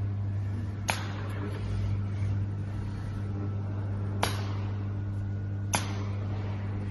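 Steady low electrical hum of running workshop machinery, with three sharp clicks spaced a few seconds apart.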